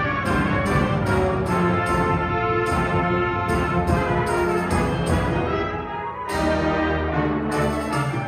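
Concert band playing live: brass and woodwinds hold sustained chords over sharp percussion hits that come about twice a second. About six seconds in the sound dips briefly, then low held notes take over.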